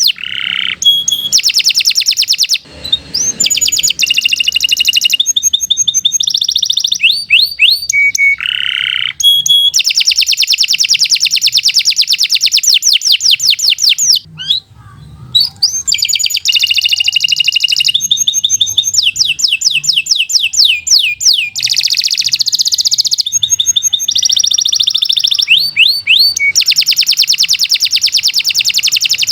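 Domestic canary singing a long, continuous song of rapid trills and rolls, switching to a new phrase every second or two, with a brief pause about halfway through.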